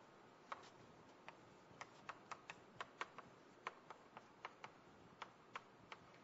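Chalk tapping and clicking against a chalkboard while writing: a string of sharp, irregular taps, about three a second, over faint room noise.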